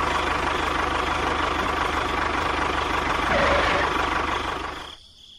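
Small engine running steadily with a fast, even low pulse, fading out about five seconds in.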